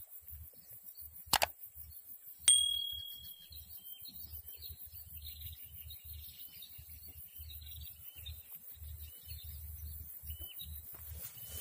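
A mouse-click sound effect, then about a second later a single bell ding that rings out and fades, the sound of a subscribe-button overlay. Faint high chirps and a low rumble of wind continue underneath.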